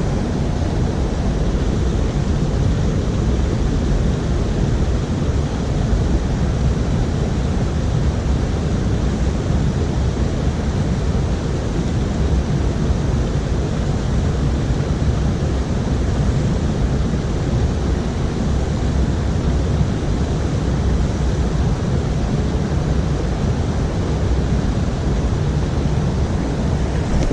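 Steady rushing of flowing creek water, an even noise heaviest in the low end.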